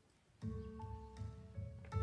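A class of children playing descant recorders together, starting about half a second in with steady held notes over a low, rhythmic accompaniment.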